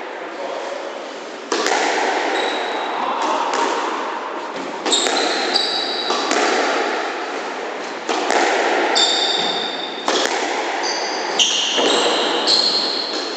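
Squash rally: the ball is struck and hits the court walls about every two to three seconds, each hit echoing on in the enclosed court. Between the hits, players' shoes squeak on the wooden floor.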